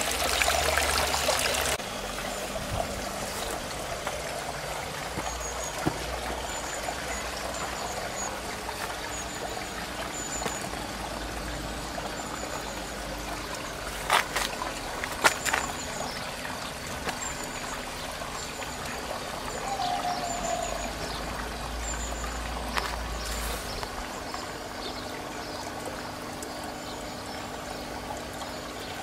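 Water trickling steadily through a garden pond's green-wall and plant-lagoon filtration, fed at a low rate by a small pump; louder for the first two seconds, then an even trickle. Faint high chirps repeat through the middle, with a couple of sharp clicks about halfway.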